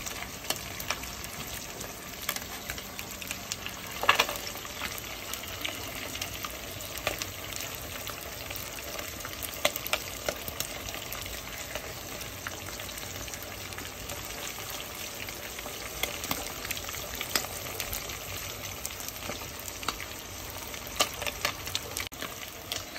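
Whitefish steaks deep-frying in oil in a pot: a steady sizzle with many small pops and crackles, and one louder burst about four seconds in.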